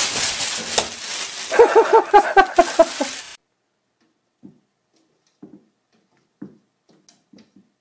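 Plastic bag crinkling loudly as a cat bursts out of it. Then comes a run of short pitched bursts, about four a second, over low knocks, which cuts off suddenly. A few faint soft taps follow.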